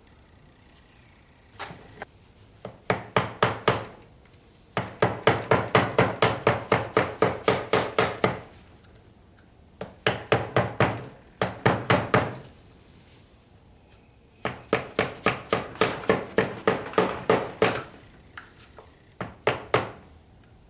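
Rapid metallic taps from hand tools working on an NP208 transfer case, coming in about five runs of a second to a few seconds each, roughly five taps a second, each with a slight ring.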